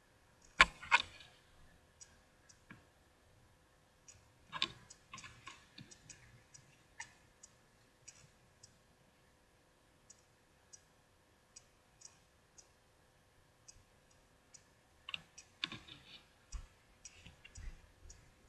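Baseball trading cards being handled and shuffled close to the microphone: scattered small clicks and taps, with a few louder knocks about half a second in, around four and a half seconds in, and in a cluster near the end.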